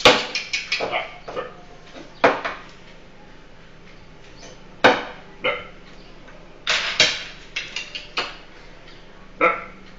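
Irregular sharp knocks and clacks from a long rod struck against a tabletop: a quick cluster at the start, single knocks around two and five seconds in, another cluster around seven to eight seconds, and one more near the end.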